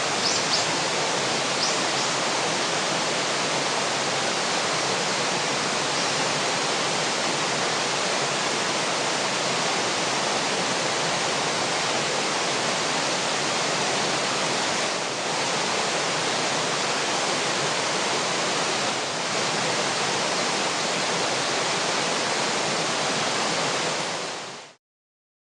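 Rushing river water: a steady, even hiss of flowing current, with a few faint high chirps in the first two seconds. It cuts off abruptly near the end.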